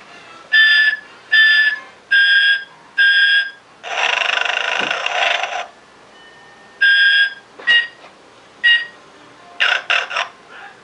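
Telco animated Santa Claus decoration playing its recorded snoring: four short whistled exhales, a long breathy snore, then more scattered whistles and a brief sputter near the end, repeating in a loop.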